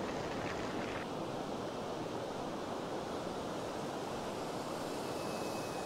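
Steady rush of ocean surf breaking on a beach, mixed with wind noise on the microphone.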